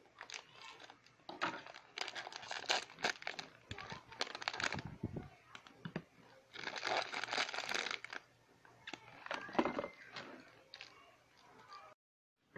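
Packaging being handled and unwrapped, crinkling and tearing in several bursts, with a brief drop to silence near the end.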